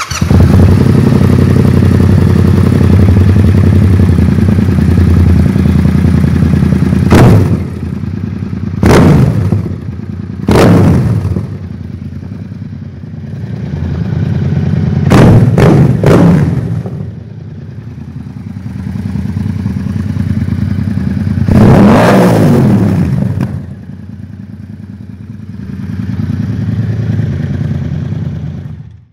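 Yamaha MT-07's 689 cc CP2 parallel-twin running through an Akrapovic exhaust, held at a steady loud note at first, then revved in stationary throttle blips, about six sharp rises and falls in pitch with slower swells of revs between them.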